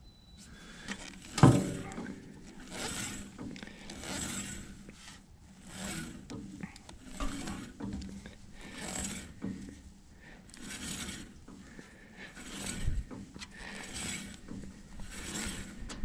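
Bandsaw blade and band wheel of a Woodland Mills HM126 sawmill turned round by hand in repeated pulls, a scraping, rasping swish about once a second as the blade moves over the wheels, while the blade tracking is checked. A sharp knock about a second and a half in.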